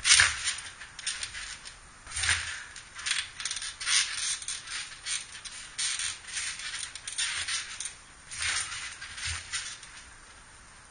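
Backyard trampoline being jumped on: irregular landings on the mat with the springs rattling and creaking, the loudest landing thump right at the start and a few more about two and eight seconds in, then quieter near the end.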